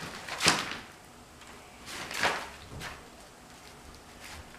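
A few short scrapes and knocks from the wooden bed frame being handled at the headboard. The loudest comes about half a second in, another shortly after two seconds, and a smaller one soon after.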